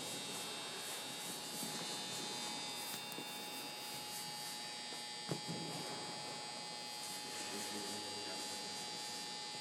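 A steady electrical-sounding hum with a faint high whine, broken by a single sharp click about five seconds in.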